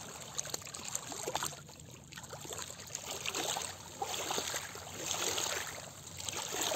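Small lake waves lapping and trickling among shoreline rocks, coming in gentle swells with small splashes and clicks.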